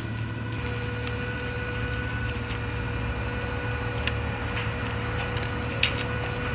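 Steady low machine hum with a thin steady whine over it, and a few short clicks and knocks of tarpaulin and rope being worked through metal grommets.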